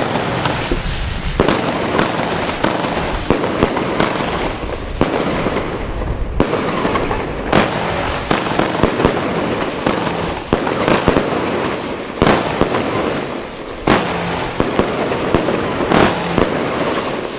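Fireworks going off in a dense, continuous crackle. Many sharp bangs are scattered through it, and several stand out louder than the rest.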